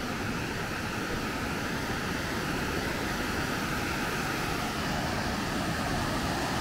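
Steady rush of a waterfall, slowly growing louder.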